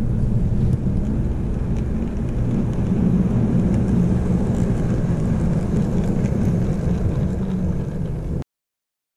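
Steady low rumble of an HO scale model train running on the layout, which cuts off abruptly about eight seconds in.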